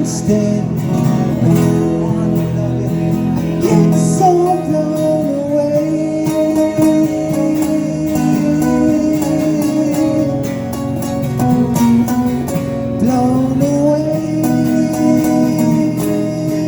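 Live rock music led by guitars: long held notes that bend in pitch, over strummed chords.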